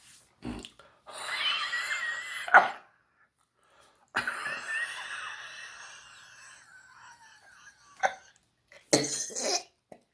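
A man coughing and forcing out long, breathy exhales that carry a thin, wavering whistle. The first exhale ends in a sharp, loud cough, the second trails off over a few seconds, and two shorter coughs come near the end.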